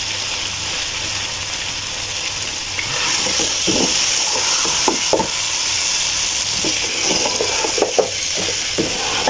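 Beef pieces in spice masala sizzling as they are fried down (bhuna) in a pot. From about three seconds in, a wooden spoon stirs them hard: the sizzle grows louder, with repeated scrapes and knocks of the spoon against the pot.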